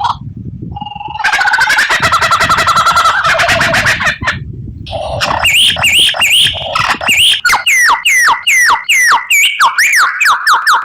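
A songbird singing: a fast stuttering chatter, then after a short pause a long run of sharp slurred whistled notes, about three a second.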